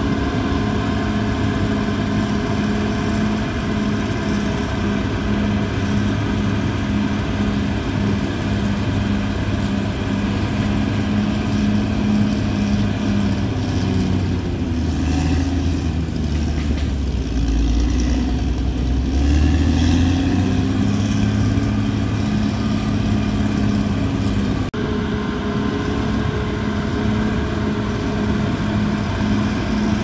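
Caterpillar D6R XL bulldozer's diesel engine running under load as the dozer pushes soil with its blade. The engine's pitch sags lower around the middle and then comes back up.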